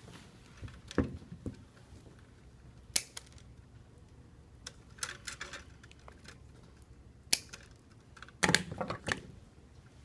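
Scattered sharp clicks and snips of a hand wire stripper and pliers working insulated 14 AWG copper wire, with a short cluster of clicks near the end.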